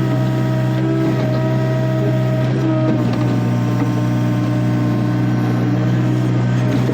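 Takeuchi TB145 compact excavator's diesel engine running steadily under work, with higher tones above the engine drone that shift up and down in pitch.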